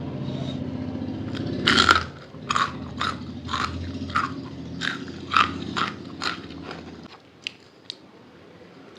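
Close-miked chewing of momos, a series of wet, smacking mouth sounds about two a second. A low steady hum runs underneath and cuts off about seven seconds in.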